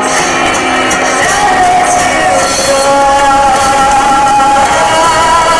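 A song playing loudly as the dance's accompaniment: long held melodic notes that step between pitches.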